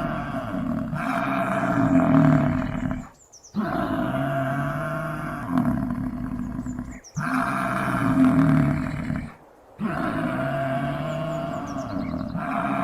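Bison bellowing: deep, drawn-out roars broken by three short pauses, about three, seven and nine and a half seconds in.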